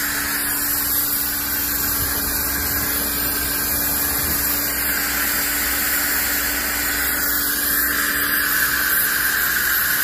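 Small pressure washer running, its pump humming steadily while the water jet hisses against a car's side panels.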